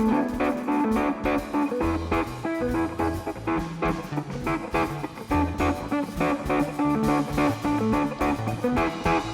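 Live rock band music led by guitar, with a bass line coming in about two seconds in.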